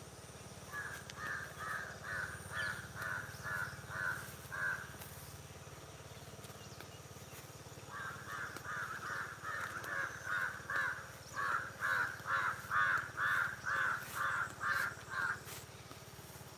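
A crow cawing in quick repeated calls, about two to three a second. A short run near the start is followed, after a pause of about three seconds, by a longer and louder run.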